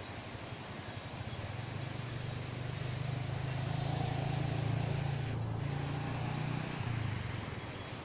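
Low hum of a passing motor vehicle's engine, swelling from about a second in and fading away near the end, over a steady background hiss.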